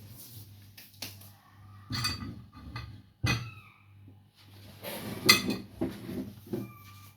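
Plates and cutlery being handled on a kitchen counter: a handful of separate knocks and clinks, some of them ringing briefly.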